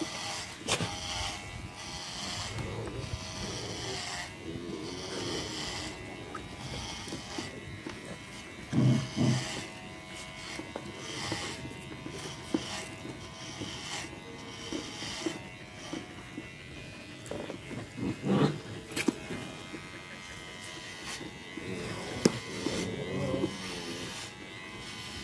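Electric hair clippers running steadily, trimming a dog's long coat. A few short, louder voice-like sounds break in twice, about 9 and 18 seconds in.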